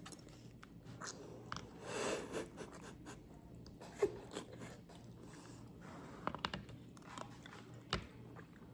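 Quiet chewing of dumplings, soft wet mouth sounds with a few small clicks scattered through.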